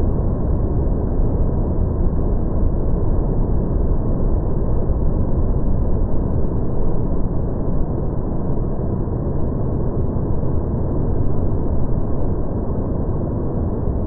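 Fukuroda Falls in full rainy-season flood: the steady roar of a broad waterfall crashing down its rock steps, heard as a deep, dull rumble with no hiss above it.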